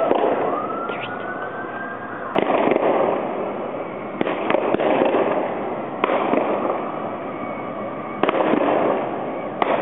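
A crowd outdoors yelling and cheering in loud waves, a new roar breaking out about every two seconds and fading off. There is a rising whoop near the start.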